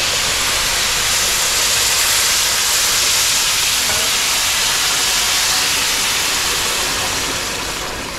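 Hot water poured into a wide steel pan of rice frying in oil, the pan hissing and sizzling loudly as the water hits the hot fat and turns to steam. The hiss eases a little near the end as the pouring stops.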